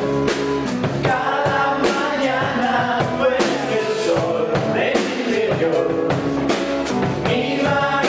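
Rock band playing a song with a man singing, over drum kit, electric bass and acoustic guitar, the drums keeping a steady beat.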